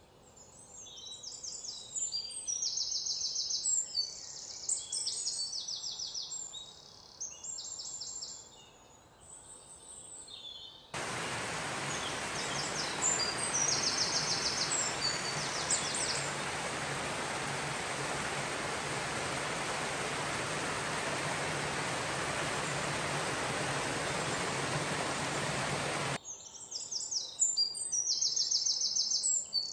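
Small birds chirping in quick repeated trills; about a third of the way in, a steady rush of water splashing over a ledge comes in suddenly and nearly covers them, then cuts off abruptly near the end, leaving the birdsong again.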